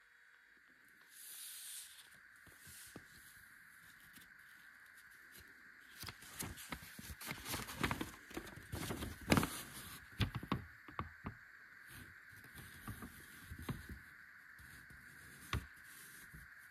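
Paper instruction manual being handled and unfolded by gloved hands: crinkling and rustling with sharp paper clicks, thickest from about six to eleven seconds in, over a faint steady hiss.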